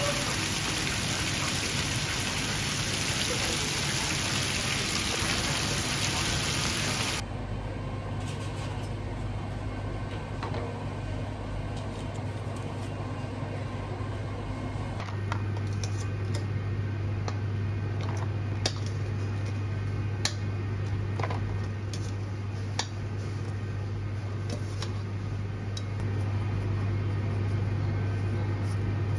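Chicken pieces sizzling in the bubbling oil of a commercial deep fryer, a loud dense hiss that stops abruptly about seven seconds in. After that comes a quieter steady low machine hum, with scattered light clicks and knocks.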